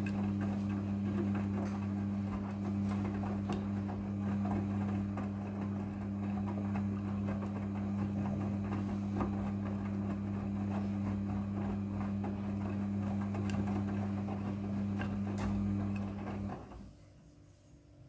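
Midea front-loading washing machine's drum motor humming steadily as it turns the drum in a wash rotation, with the laundry tumbling inside. The motor stops about sixteen and a half seconds in.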